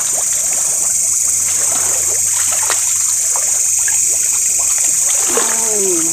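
Steady high-pitched hiss of a night insect chorus over trickling ditch water, with scattered small clicks and splashes. A short falling voice comes near the end.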